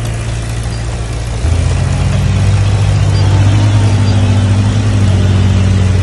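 Heavy diesel engine of earthmoving machinery running steadily, its note stepping up in pitch and loudness about a second and a half in, then holding at the higher revs.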